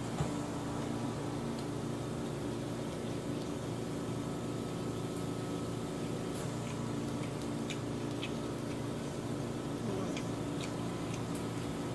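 Someone eating with chopsticks: a few faint clicks and chewing noises from about six seconds in, over a steady mechanical hum.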